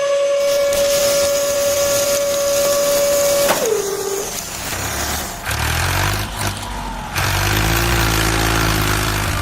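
Truck sound effects: a long steady high tone dips in pitch and stops about three and a half seconds in, followed by an engine running.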